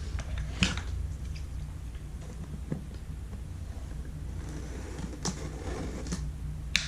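Light handling of a shrink-wrapped product box: a few soft knocks and taps, over a steady low hum.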